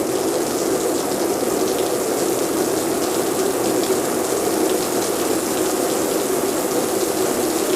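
Rain shower head running, a steady dense hiss of water spraying down.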